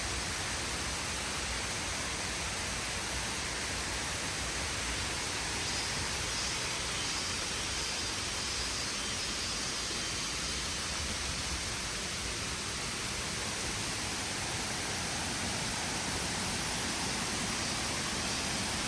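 Steady rushing of waterfall cascades, an even hiss of water that holds constant throughout.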